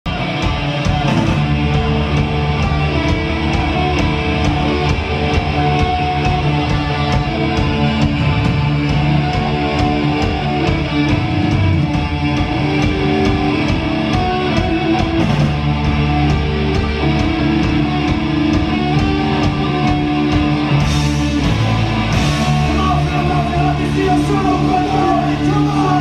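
Live punk rock band playing loud: electric guitars, bass and drums driving a steady beat, with vocals, and two cymbal crashes near the end.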